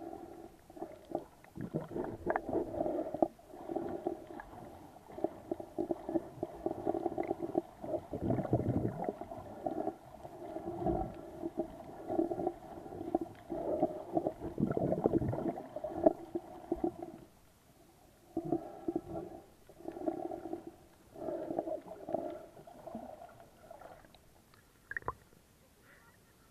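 Muffled underwater noise picked up by an action camera's waterproof housing: water rushing and sloshing around the camera as it moves, swelling and fading in surges, then quieter near the end as the camera comes up to the surface.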